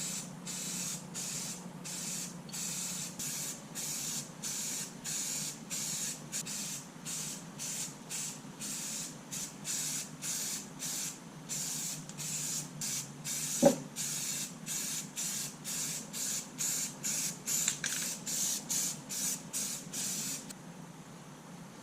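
Aerosol can of flat black spray paint hissing in short repeated bursts, about two a second, as the cast-iron arbor press is painted; one sharp knock about two-thirds of the way through, and the spraying stops near the end.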